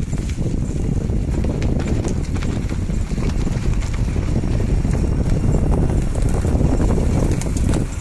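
A taxi driving over a rough dirt road: a steady low rumble of tyres and car, with wind buffeting the phone's microphone at the open window and scattered small knocks and rattles as the car bumps along.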